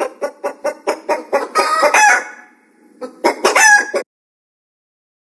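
A chicken clucking in a quick run of short clucks, about six a second, then cackling in longer calls that rise and fall in pitch, pausing once and cutting off suddenly about four seconds in.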